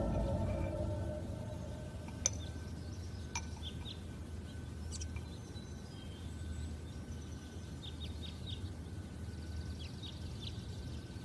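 Faint birds chirping over a quiet background ambience, as the tail of music fades out in the first second. A single sharp click comes about two seconds in.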